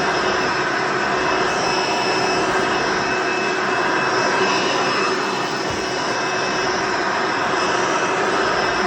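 Hoover Encore Supreme upright vacuum cleaner running steadily, a loud motor whine with several steady high tones over the rush of air.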